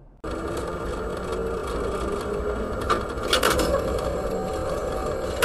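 Tram running along street rails, heard from inside the driver's cab: a steady mechanical hum and rattle, with a couple of sharp clatters about three seconds in.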